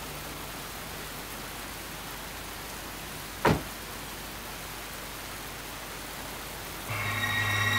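Steady heavy rain hiss; about three and a half seconds in, a single sharp thud of a car door being shut. Near the end, a sustained eerie music chord comes in.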